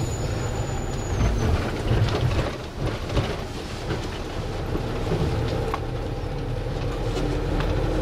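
Bus engine and road noise heard from inside the cabin while driving: a steady low rumble with a few short knocks and rattles.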